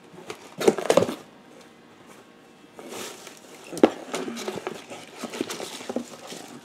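Hands rummaging in a cardboard shipping box, with packaging rustling and items knocking. It comes in a short burst about a second in, then again more steadily from about three seconds in.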